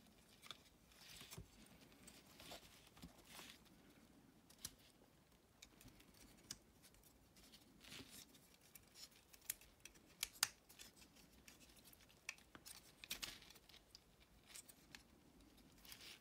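Faint, irregular clicks and rubbing of the small plastic parts of a Mechanic Toys MS-18 Steel Ambition figure being handled and unfolded during transformation, with a few sharper clicks about two-thirds of the way through.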